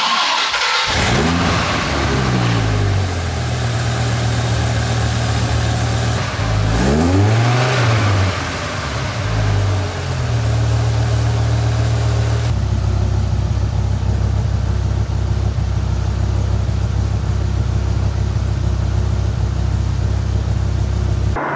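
Second-generation Dodge Viper's 8.0-litre V10 running through its exhaust: it picks up in revs about a second in, idles steadily, is given one brief rev that rises and falls about seven seconds in, and then idles steadily. About twelve seconds in the sound changes abruptly to a steadier, deeper idle.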